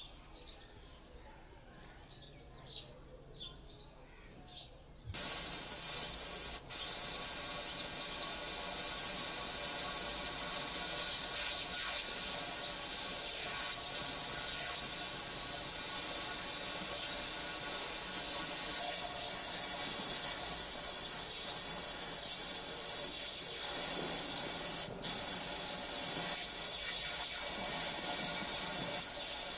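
Steady, loud spray hiss that starts suddenly about five seconds in and stops for a moment twice. Faint bird chirps are heard before it.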